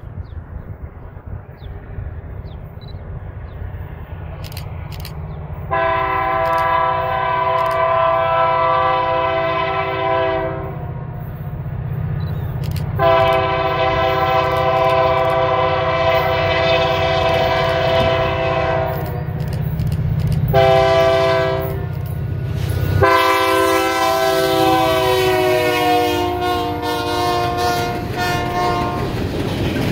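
A diesel freight locomotive on the Indiana Rail Road sounds its multi-chime air horn in the grade-crossing pattern: two long blasts, a short one, then a long one, the usual warning for a road crossing ahead. The last blast drops in pitch as the locomotive comes past, and a low engine rumble runs underneath until then.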